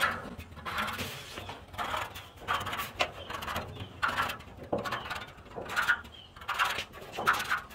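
Short scratches and clicks of a marking tool worked around bolt holes in the steel inner wheel tub panel, about two a second, as the hole positions are marked through onto the panel behind.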